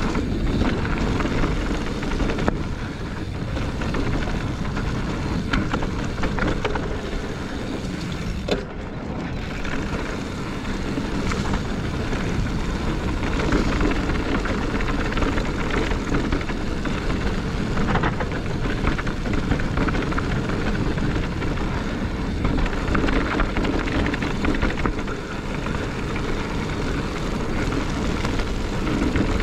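A mountain bike riding a dirt trail: a steady rush of wind on the microphone over tyre noise, with small knocks and rattles from the bike over bumps and a sharper knock about eight and a half seconds in.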